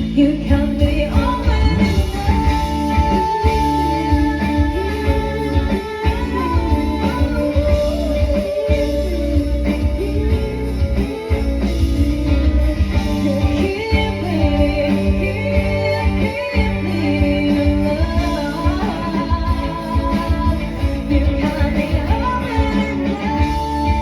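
Live band music: bass and drums with guitar and a held, gliding melody line on top, starting abruptly and playing at a steady full level.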